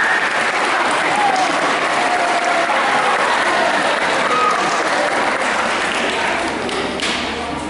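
Audience of schoolchildren applauding, with scattered voices among the clapping; the applause starts to die down near the end.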